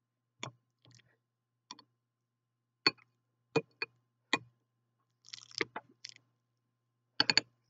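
Metal potato masher mashing avocado in a glass bowl: scattered sharp clicks and clinks of the masher striking the glass, about a dozen at uneven intervals, with a softer, noisier stretch a little past halfway.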